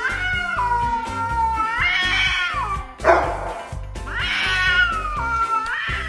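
A cat yowling at another cat in long, drawn-out, wavering calls that slide up and down in pitch, with a short hiss about halfway through. Background music with a steady beat plays underneath.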